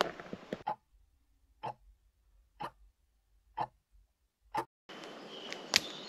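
A brief rustle of nylon sleeping-bag fabric, then four clock ticks about a second apart in silence. Near the end, a steady outdoor forest background starts.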